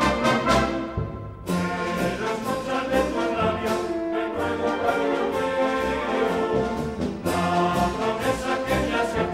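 Brass band with drums playing a lively festive tune, trumpets and trombones over a steady drumbeat; the music breaks off briefly about a second and a half in, then carries on.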